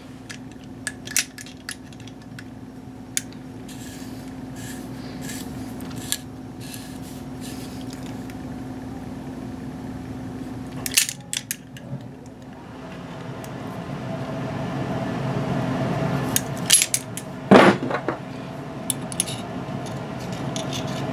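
Small metal parts of a stand mixer's latching hinge clinking and clicking as they are handled and pressed together, with a few sharper metal knocks, the loudest a little past the middle. A steady low hum runs underneath, cutting out briefly near the middle and then getting louder.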